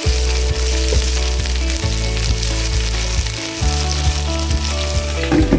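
Chicken pieces sizzling as they fry in mustard oil in a karahi. Background music with steady bass notes that change every couple of seconds plays under it.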